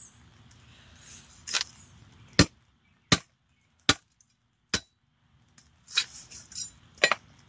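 Heavy Chinese cleaver chopping down through a skinned groundhog's head onto an end-grain wooden cutting board, cutting off the front of the face and nose. About seven sharp chops, the middle ones evenly spaced a little under a second apart, with a few lighter knocks near the end.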